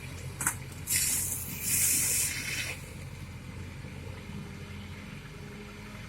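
Excavator's diesel engine running steadily at a low hum, with a loud hiss about a second in that lasts nearly two seconds.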